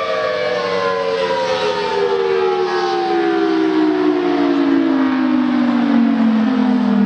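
Federal Signal Thunderbolt 1000T outdoor warning siren winding down after its test, its wail falling steadily in pitch.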